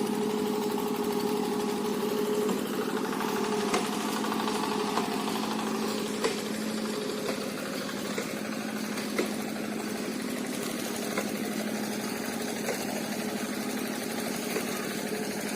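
A small engine running steadily, its even hum overlaid by faint, irregular sharp ticks.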